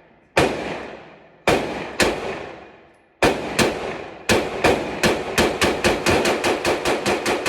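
9mm Glock 43x pistol firing a string of shots, each with a long echoing tail: a few spaced shots, then a fast run of about five shots a second that keeps going through the end.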